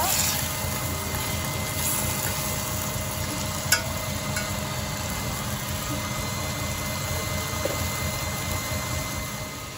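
Steady low mechanical hum and rumble, with a metal spoon clicking once against a stainless-steel saucepan about four seconds in while butter is stirred to melt.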